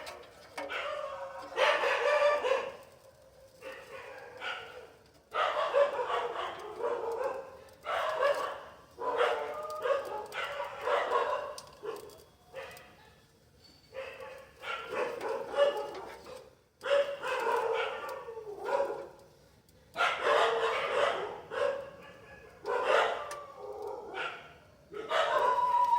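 A dog barking over and over, in loud bursts coming every second or two.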